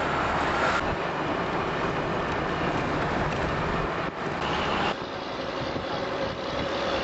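Steady engine and road noise heard from inside a moving vehicle, easing slightly about five seconds in.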